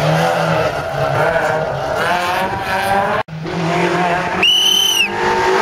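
Rally car engines running hard, the engine note rising and falling with the throttle and gear changes. The sound cuts off abruptly a little past halfway and another car's engine comes in, with a high, steady squeal lasting under a second near the end.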